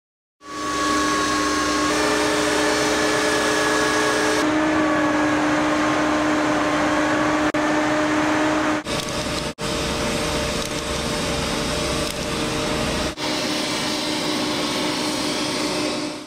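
Multi-blade concrete joint saw running and cutting into a concrete slab: a loud, steady machine noise with a held whine, broken off abruptly a few times.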